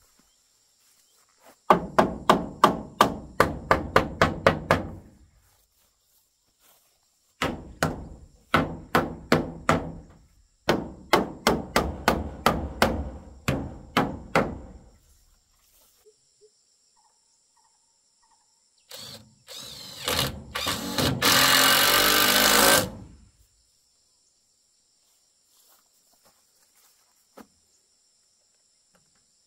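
A wooden wall plank being hammered into place: three runs of quick blows, about four a second, each run fading as it goes. A few seconds of loud power-tool noise follow a little past the middle.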